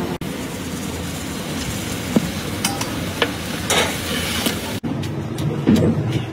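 Big aluminium pot of meat stock boiling and being stirred with a long wooden-handled ladle, a steady bubbling hiss with occasional scrapes. Near the end a wooden pestle starts pounding in a stone mortar, about two or three knocks a second.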